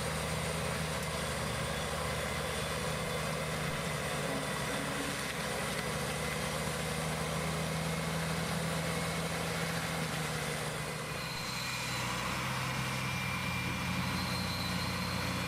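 Heavy stump-grinding mulcher's engine running steadily with a constant hiss over it; the engine note dips slightly and shifts pitch about eleven seconds in.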